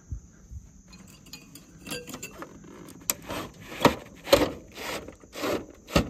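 Clicks, knocks and scraping of a Bosch ductless heat pump's main control board and its metal mounting bracket being worked loose and pulled up out of the outdoor unit, with several sharper knocks in the second half.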